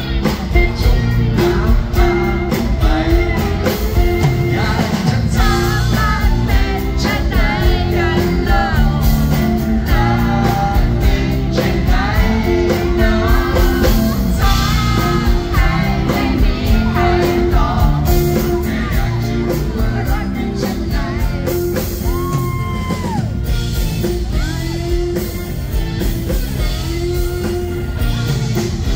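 Live rock band playing a song in concert through the PA: a male vocalist singing over acoustic guitar, electric guitar and a drum kit keeping a steady beat.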